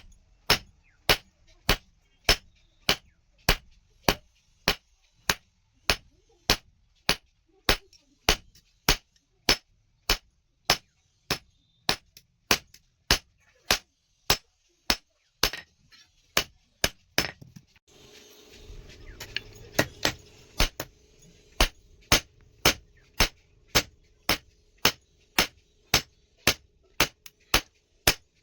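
Hand hammer beating a steel rod on an anvil in steady, evenly paced blows, a little under two a second, each with a short metallic ring. About two-thirds of the way through, a steady hum starts underneath and continues.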